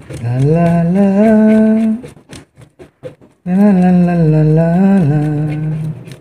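A man humming a tune without words in two long, sliding phrases, with a short pause of a few faint clicks about two seconds in.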